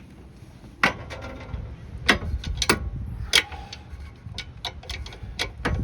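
Ratcheting torque wrench tightening a sway bar link nut: a series of sharp ratchet clicks, a few loud separate ones in the first half, then quicker, lighter ticks.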